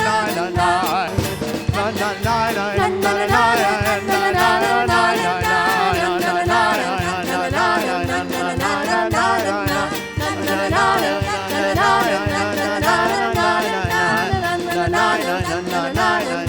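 Live worship-band music with a steady drum beat and a wavering melody line carried over it.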